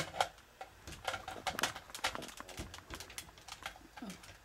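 Irregular sharp plastic clicks, several a second, from the airsoft AK-47's winding magazine being handled and wound by hand.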